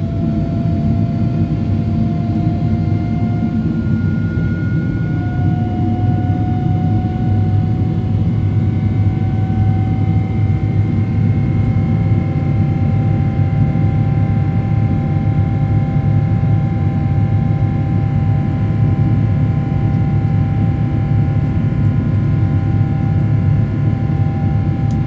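Passenger airliner cabin noise from the jet engines and airflow: a steady low roar. Over it runs a faint whine that slowly rises in pitch, broken off briefly about four seconds in.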